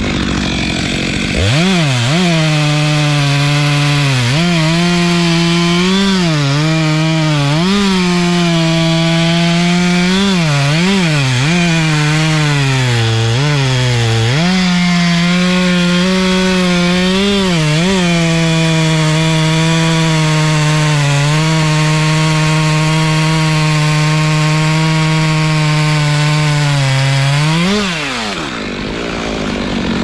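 Stihl MS 462 two-stroke chainsaw cutting through a thick tree trunk. Its pitch dips and recovers again and again as the chain bogs under load in the cut, then holds steady through a long stretch of cutting, and drops away near the end as the saw comes off the throttle.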